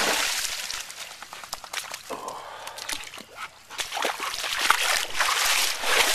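A dog splashing through a shallow muddy puddle, loudest right at the start. About four seconds in there is more sloshing, with scuffing, squelching steps on wet mud.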